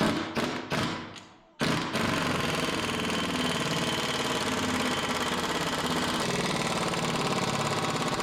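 Power tool tightening the bolts of a rear shock mount on a car chassis: a few short bursts, then from about one and a half seconds in a steady, fast-pulsing run that doesn't let up.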